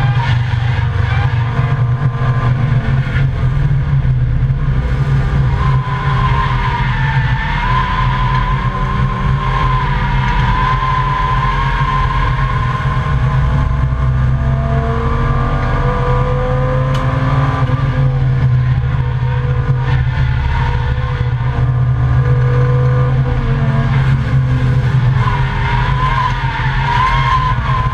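Volvo 855 race car at speed on track, heard from inside the cabin: a steady loud engine drone mixed with road and wind noise. A wavering higher whine comes and goes through the corners.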